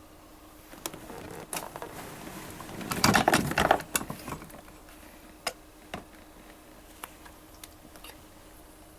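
Hands moving the detached backrest actuator of a massage chair aside: scattered clicks and rustling, with a louder clatter of knocks about three seconds in, then a few single sharp clicks.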